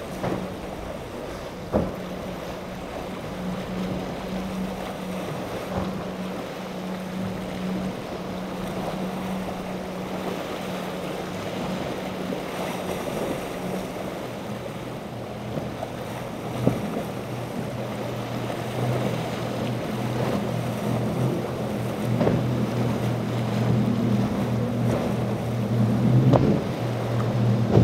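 Outboard motor of a center-console boat running as it crosses choppy inlet waves, under a steady hiss of surf, spray and wind on the microphone. In the second half a deeper engine drone takes over and grows louder, and a few sharp knocks stand out.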